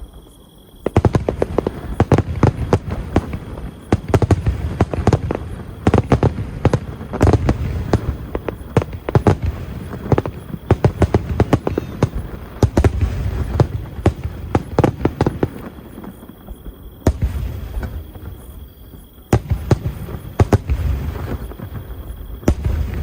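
Aerial fireworks bursting in quick succession: deep booms overlaid with dense crackling. There is a short lull about two-thirds of the way through before the bursts resume.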